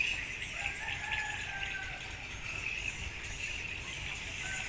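Outdoor ambience: a steady high drone of insects with a few faint bird calls over it.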